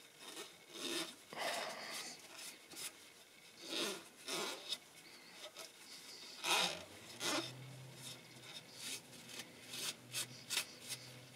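Cloth rag rubbing and scraping in short, irregular strokes along the bare-metal sump mating edge of the engine, wiping off old sealant residue to clean the surface.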